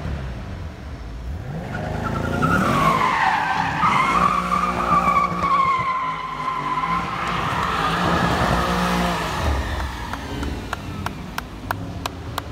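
Mercedes-AMG E63 S's twin-turbo V8 revving as the car spins its tyres in a smoky drift, the tyres squealing with a wavering high squeal for several seconds before easing off. A quick run of sharp clicks follows near the end.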